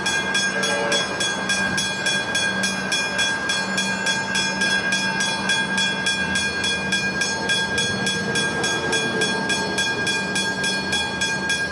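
Westinghouse hybrid level-crossing bell ringing in a rapid, even rhythm of about five strikes a second, warning that a train is approaching.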